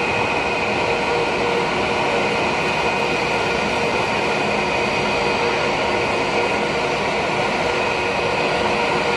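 Steady jet aircraft noise: a constant rushing roar with a high whine held on one pitch, not changing in level.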